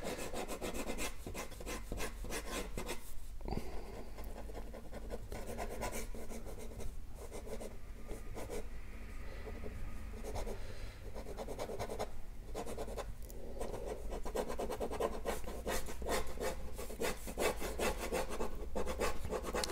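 BIC ballpoint pen scratching across drawing paper in runs of quick, short strokes with brief pauses, pressed firmly to darken the sketch.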